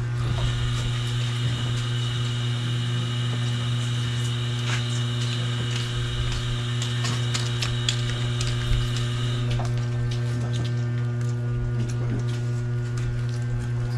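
A steady low hum with fainter steady overtones. A high, even whine sounds over it from the start and stops about nine and a half seconds in, and faint light clicks are scattered through.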